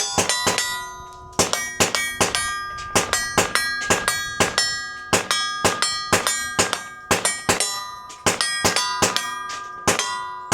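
Gunfire in quick runs, about thirty sharp shots, each followed by the ringing clang of hit steel targets.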